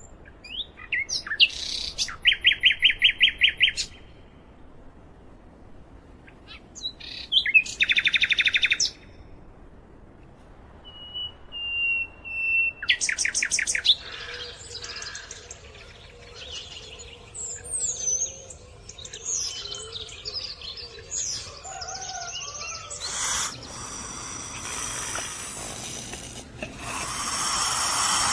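Birds calling in fast trilled phrases of rapidly repeated chirps, several short bursts with pauses between, then a jumble of mixed calls. Near the end a louder, rough rushing noise takes over.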